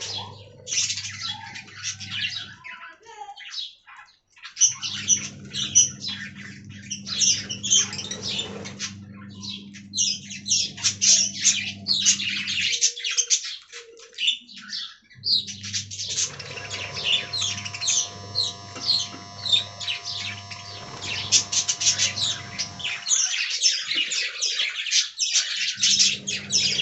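A group of budgerigars chirping and chattering in rapid, continuous high-pitched bursts, with a low steady hum underneath that cuts out and comes back several times.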